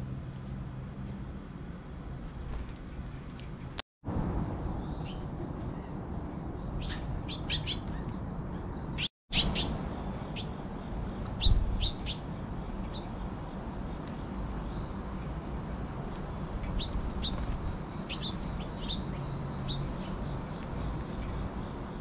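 A steady, high-pitched drone of insects with short bird chirps scattered through, at a backyard feeder. The sound cuts out briefly twice, about 4 and 9 seconds in, and there is a brief low thump near the middle.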